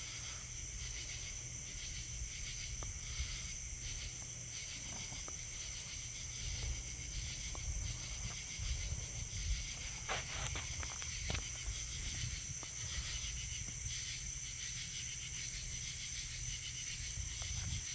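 Crickets chirping in a steady, pulsing chorus, over a low rumble, with a few faint clicks about ten seconds in.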